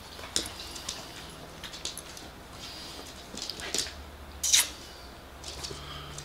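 A small dog's claws tapping and clicking on a hardwood floor as it hops up on its hind legs for a treat, with one louder sharp click about four and a half seconds in.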